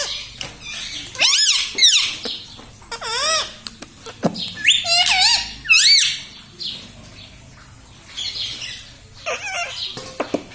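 Pet ringneck parrot making short, squeaky, high-pitched calls whose pitch rises and falls, in four or five separate bursts with pauses between.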